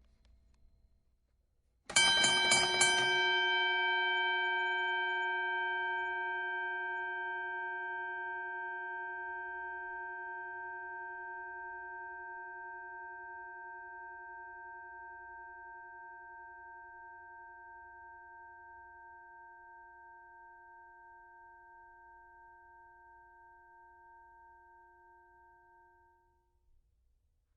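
Boxing ring bell struck several times in quick succession, then left to ring out, its tone fading slowly with a slight wavering over more than twenty seconds.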